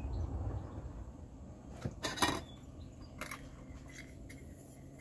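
Metal clinks and a short rattle from a stainless steel camping pot and its folding wire handles being handled on a small gas canister stove, loudest about two seconds in, followed by a few lighter ticks.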